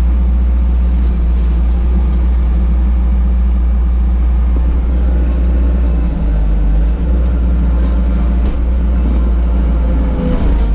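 1988 Bobcat 743 skid steer's engine running steadily with a deep drone, heard from inside its closed cab. Near the end a higher steady whine comes in over the engine.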